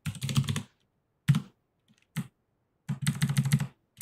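Computer keyboard being typed on: quick runs of keystrokes, a cluster in the first second, two single strokes, then another run near the end, as a web address is typed.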